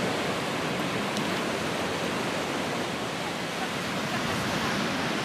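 Mountain river rushing over rocks and small cascades: a steady, even rush of water.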